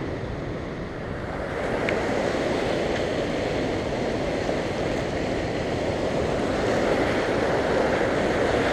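Ocean surf washing and breaking over shoreline rocks, a steady rushing that grows louder toward the end.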